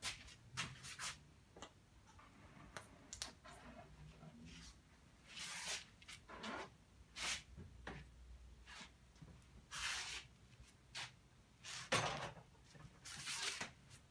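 Paint being applied to canvas in short scraping strokes, about a dozen brief rubs spaced irregularly, over a faint low room hum.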